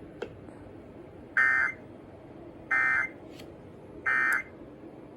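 Three short bursts of Emergency Alert System digital data tones, the end-of-message code that closes the Required Weekly Test. Each burst is a buzzy warble lasting about half a second, and they come about a second and a half apart.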